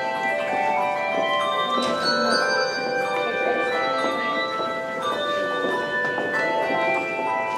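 Handbell choir playing: many bells of different pitches struck in turn, each tone ringing on and overlapping the next.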